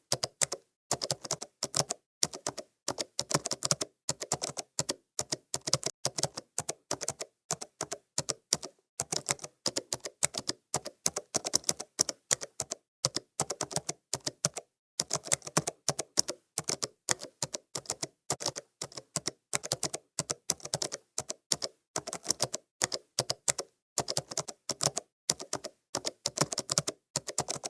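Typing on a computer keyboard: runs of key clicks at an unhurried pace, broken by brief pauses.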